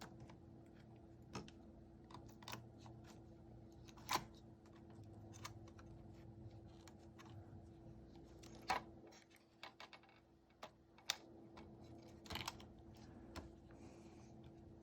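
Scattered light clicks and taps of small radio parts being handled and fitted back together during reassembly of a car radio head unit, over a faint steady hum.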